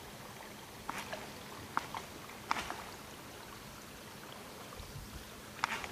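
Topwater plug twitched across the pond surface near the bank, making a few short plops and splashes about a second apart, then a pause of some three seconds before one more near the end, over a low steady hiss.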